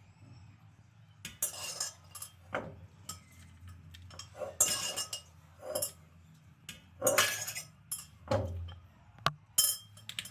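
Spoon and serving utensils clinking and scraping against dishes in irregular knocks as food is portioned into small serving packs, over a faint low steady hum.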